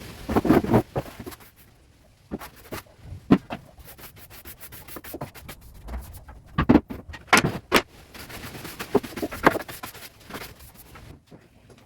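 Tools and workshop items being handled and put away: irregular knocks and clatters as things are set down, with rubbing and scraping between them.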